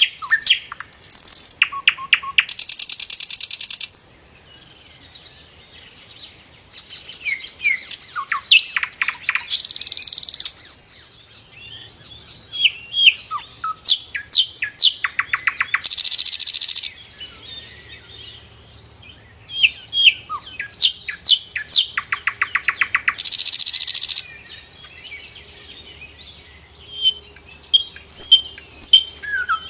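Small songbird known in Indonesia as sikatan londo, a flycatcher, singing energetically in repeated bursts of quick chirps, rapid trills and harsh buzzy stretches, with pauses of a few seconds between phrases.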